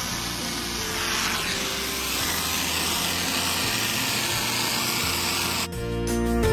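Pressure washer spraying, a steady hiss with the machine running under it. It cuts off abruptly near the end and music takes over.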